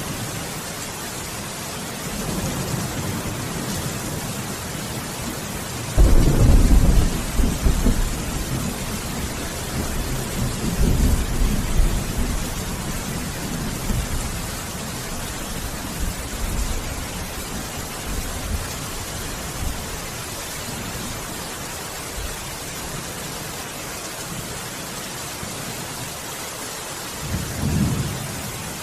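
Steady heavy rain hissing, with a sudden loud clap of thunder about six seconds in that rolls on for several seconds, and a fainter rumble of thunder near the end.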